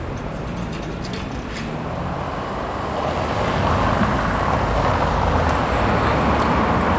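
City street traffic noise, with a passing vehicle swelling louder about halfway through.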